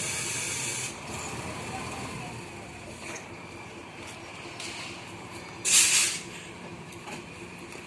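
Heavy diesel machinery running steadily, with sharp bursts of air hiss: one at the start lasting about a second, and a louder, shorter one about six seconds in.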